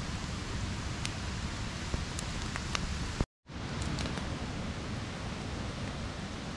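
Wood campfire crackling, with scattered sharp pops over a steady hiss; the sound cuts out for a moment about three seconds in.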